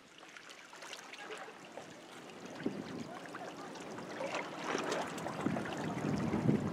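Small waves lapping and splashing among shoreline rocks, a fizzing run of little splashes that grows steadily louder, with wind starting to buffet the microphone near the end.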